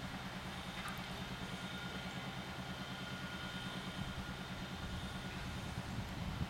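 Oilfield pumpjack's drive motor running steadily, with a rapid, even low-pitched beat.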